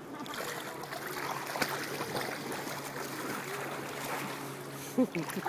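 Steady rushing outdoor noise of wind and water at the shore, with a faint low steady hum underneath. A brief sharp tick comes about a second and a half in, and a short loud sound near the end.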